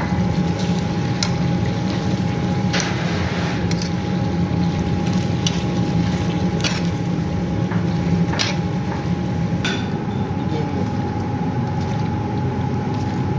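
Steady machine hum with a constant whine running through it, like a kitchen appliance or extractor fan, broken by about half a dozen short clicks and scrapes of a spoon against a steel pot.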